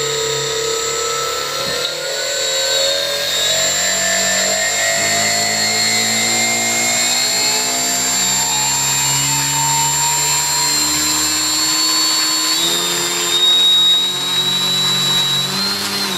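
Brushless motor driven by an electronic speed controller, running with a steady electric whine whose pitch slowly rises as the throttle is raised, steps higher a few seconds before the end, then drops at the very end as it is throttled back.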